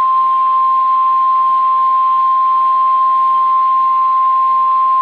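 NOAA Weather Radio 1050 Hz warning alarm tone: a single loud, steady, unwavering high tone over radio hiss. It is the alert signal that a warning broadcast, here a severe thunderstorm warning, is about to follow.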